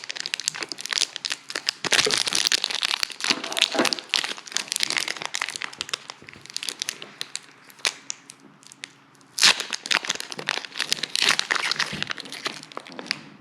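Foil wrapper of a Pokémon card booster pack crinkling as it is handled and torn open. The crinkling eases off for a few seconds past the middle, then comes back loud and sudden about nine and a half seconds in.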